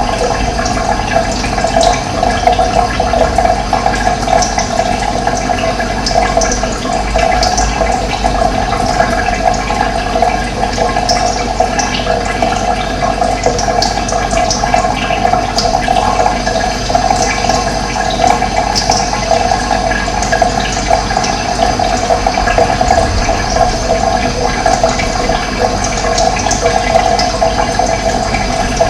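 Steady rushing of running water, with short high bird chirps here and there.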